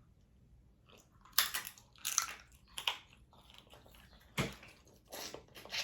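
Close-up eating sounds from a seafood boil: about five sharp crunches and cracks, most likely snow crab shell being broken and bitten, with chewing in between.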